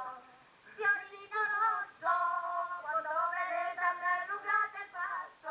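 A woman singing a Calabrian folk song, holding long notes, and coming back in after a short pause about a second in.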